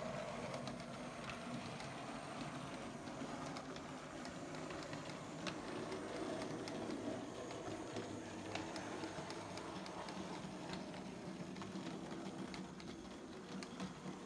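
Model train running on its track: the locomotive's small electric motor and gearing whirring steadily, with scattered light clicks from the running gear.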